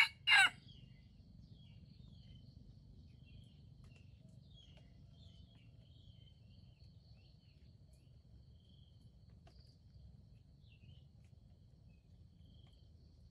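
The last note of a red junglefowl rooster's crow in the first half-second, then a steady high insect drone with a few faint bird chirps.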